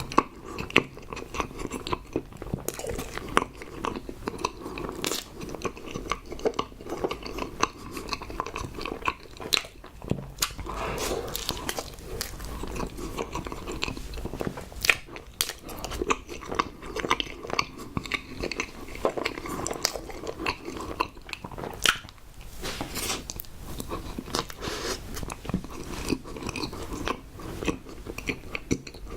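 A person eating close to the microphone, chewing and biting tapioca pearl cream bread, with many short mouth clicks throughout.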